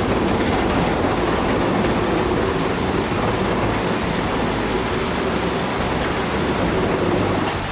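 Loud, steady rumble and clatter of a building coming down, with masonry and debris collapsing.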